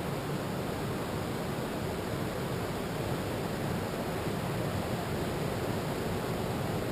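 Ocean surf breaking on a sandy beach, a steady, even rush with no single wave standing out.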